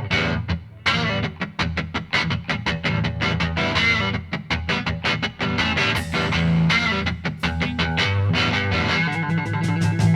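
Music with guitar and a steady beat over sustained bass notes, briefly dropping out just after it starts.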